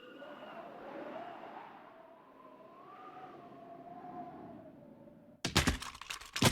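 Film sound effects: a wavering, whistling whoosh lasting about five seconds, followed near the end by a sudden run of loud crashing impacts, like a hard plastic toy smashing onto the floor.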